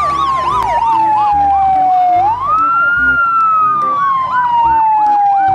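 Fire engine siren sounding: a wail that falls slowly over two to three seconds and then sweeps quickly back up, with a faster yelping warble of about three cycles a second layered over it.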